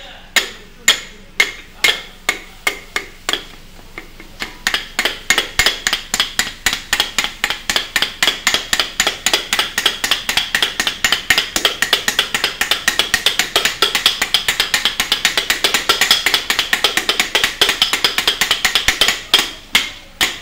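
Metal striking a flat iron griddle as kothu parotta is chopped and mixed: sharp clangs about once a second at first, then a fast, even clatter of about four or five strikes a second, slowing again near the end.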